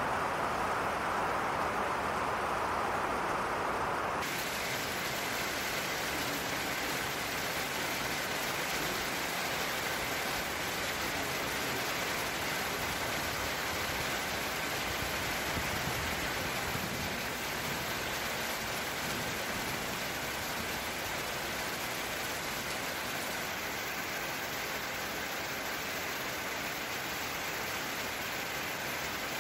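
Gentle rain falling steadily: an even hiss with no separate drops standing out. Its tone changes abruptly about four seconds in, turning brighter and thinner.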